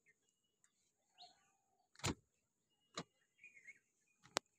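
Mostly quiet, with faint bird chirps and three sharp knocks, the last a short, sharp click near the end.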